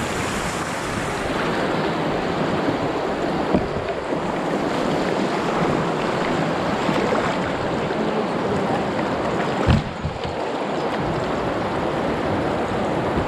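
Fast shallow river water rushing and splashing around a canoe running easy riffles, a steady whitewater rush. Two short knocks break through it, the louder one about ten seconds in.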